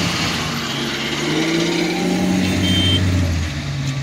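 Loaded BelAZ mining dump truck driving past close by, its big diesel engine pulling under load; the engine note climbs a little and is loudest about three seconds in, then eases off.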